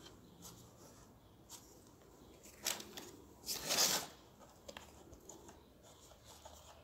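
Hand digging and scraping through soil in a tin-can pot: a few short, rough scrapes and rustles, the longest and loudest about three and a half seconds in.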